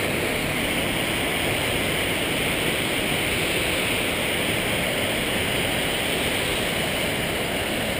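A creek rushing down a small waterfall, a steady unbroken rush of water.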